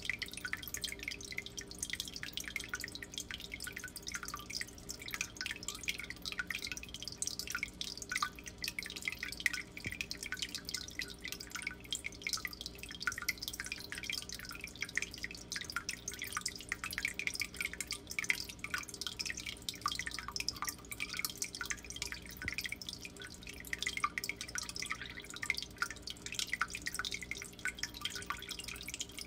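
Water from a turtle-tank filter trickling and splashing into the tank: a steady, dense patter of drips with a low hum underneath.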